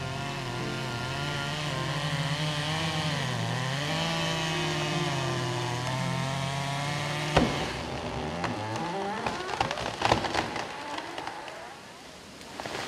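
A chainsaw running, its pitch dipping and rising as it works. About seven seconds in it is cut off by a sharp crack, followed by a series of cracks and snaps of wood as a tree comes down.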